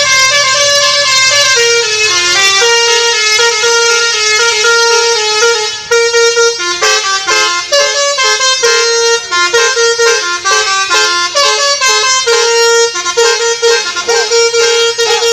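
Bus's Basuri multi-tone telolet air horn playing a very loud, shrill tune. Held notes step from pitch to pitch at first, then from about six seconds in it plays quick short staccato notes.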